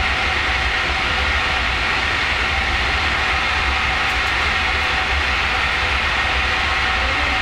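Steady, loud machinery noise of a sugar factory's process hall: a constant low rumble under an even hiss with a faint steady high hum, with no change throughout.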